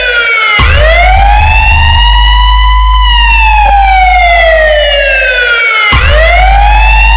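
Electronic DJ sound-check track built on a loud siren-like synth tone: it swoops up about half a second in, holds, slides down over about three seconds, then swoops up again near the end, over a steady deep bass drone.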